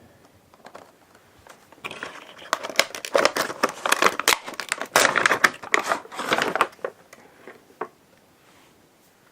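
Plastic and cardboard packaging of a Funko Pop figure being opened by hand. It crinkles and rustles with many sharp crackles from about two seconds in until about seven seconds, with only faint handling sounds either side.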